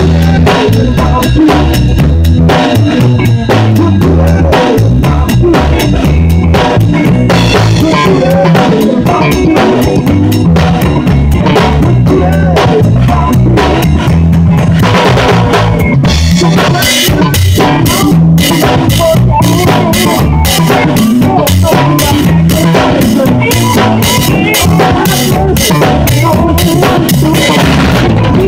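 A live rock band plays a song, with the drum kit loud and close: a steady beat of kick, snare and cymbals over bass and guitar. The cymbals grow brighter about halfway through, and the music breaks off at the very end.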